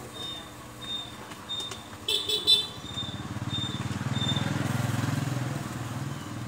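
A motorbike's engine going by, swelling to its loudest about halfway through and then easing off, after a short horn toot about two seconds in.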